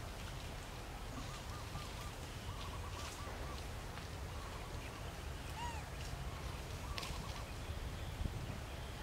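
Runs of short, quick chirping animal calls, several in a row in three bursts, over a steady low outdoor rumble.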